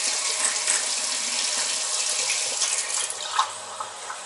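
Kitchen tap running water into a drinking glass; the flow stops about three seconds in.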